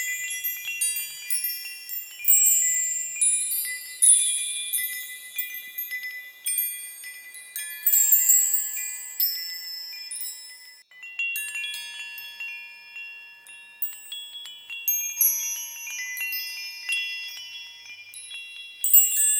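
Small high-pitched bells chiming at random like wind chimes: many clear ringing notes struck at uneven intervals and overlapping as they fade, with a brief lull a little past halfway.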